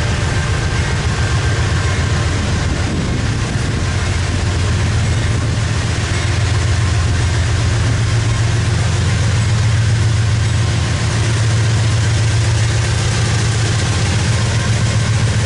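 CSX diesel-electric locomotives approaching at the head of a loaded coal train, their engines working under load with a steady, deep throbbing rumble that grows a little louder about halfway through.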